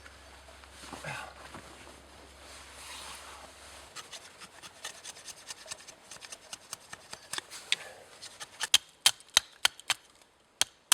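A knife shaving dry wood into tinder: soft rasping strokes at first, then a quickening run of small ticks that turns into sharp clicks about three a second near the end.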